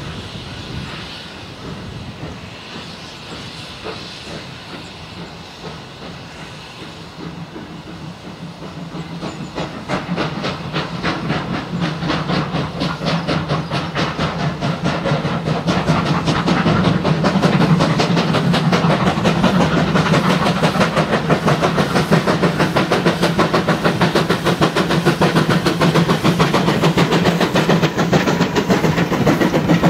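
Small steam tank locomotive working a passenger train as it approaches, its rapid exhaust beats and steam hiss growing louder through the first half until it passes close by. Near the end the coaches roll past.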